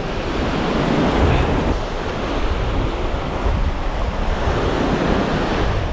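Ocean surf breaking and washing up the beach close by, a steady rushing noise with deep rumble, with wind noise on the microphone.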